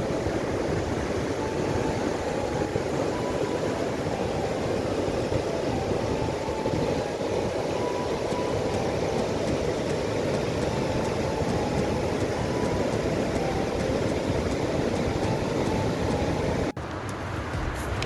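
River water pouring over a long low ledge of rocks in a broad cascade, a steady, even rush at high winter flow. It stops abruptly near the end.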